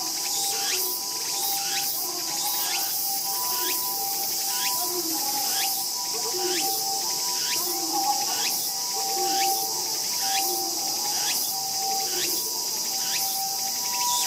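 A summer insect chorus: a steady high hiss with a short rising chirp repeating about one and a half times a second, and lower steady trilling tones that come and go.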